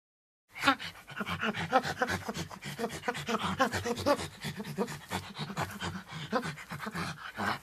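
Monkey calling in a fast, unbroken string of short pitched calls, several a second, starting about half a second in.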